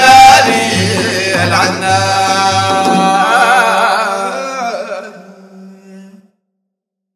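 Sudanese Sufi madeeh praise song ending: wavering voices over a steady drum beat and a held low note, fading out about five to six seconds in and stopping abruptly.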